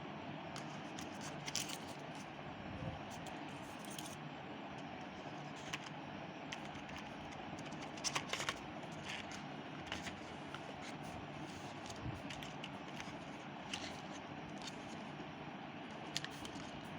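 Scattered light clicks and scrapes of small objects being handled, with a small cluster about eight seconds in, over a steady background hum.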